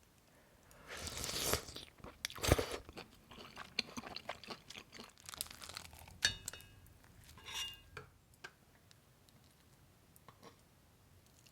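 Close-miked eating of malatang: irregular crunching and chewing of mouthfuls, busiest through the first two-thirds and dying down to a few faint clicks near the end.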